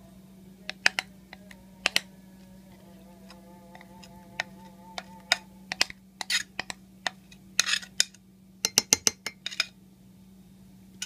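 Spoon or spatula clinking and scraping against a bowl and mug as thick cake batter is poured out: a string of sharp taps and short scrapes, thickest from about six seconds in.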